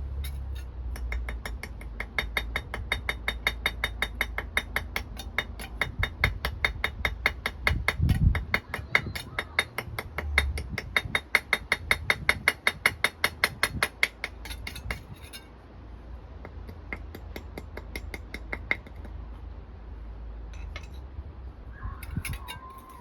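A hand tool clicking rapidly and evenly, several clicks a second, for about the first fifteen seconds, then a few scattered clicks, with a dull thump about eight seconds in.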